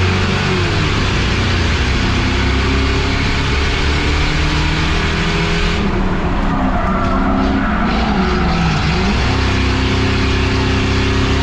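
Race car engine running hard at speed, its pitch falling off and climbing back several times as the throttle lifts and reapplies through the corners.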